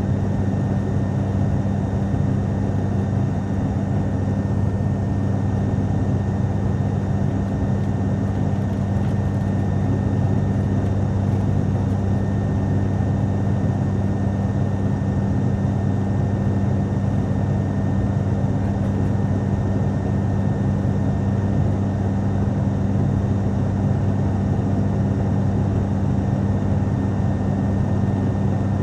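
Cabin noise inside an ATR turboprop airliner in flight: the propellers and engines make a steady, unbroken drone with a strong low hum, under a constant rush of airflow.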